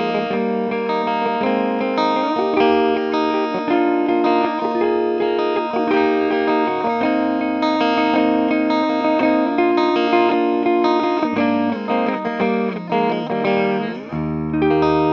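Spear SSV SE flying-V electric guitar played on its active neck pickup through a Fender amp with a clean tone: a passage of ringing chords and notes, with a chord struck near the end and left to ring. Its tone is not the cold, dry, stringy sound typical of active pickups.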